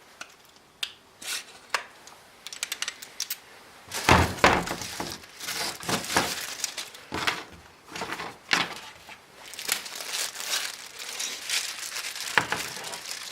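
Hands handling packaging, with crinkling and tearing plus scattered sharp clicks and knocks. It is sparse at first and gets busier and louder about four seconds in.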